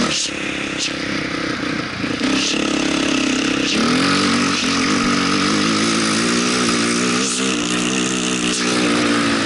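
Dirt bike engine running under load over sand, its note climbing as it accelerates about four seconds in. Wind noise rushes over the microphone.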